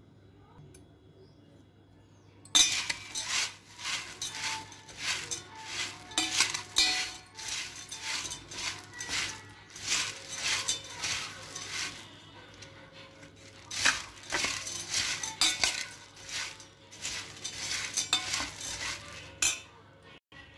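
Stainless steel spoon stirring and tossing puffed rice with chopped vegetables and spices in a bowl to mix bel puri: a quick run of clinks and rustling scrapes that starts a couple of seconds in and stops shortly before the end.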